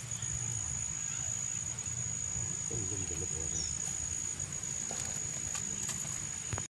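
An insect singing one continuous high-pitched note, with a low rumble underneath.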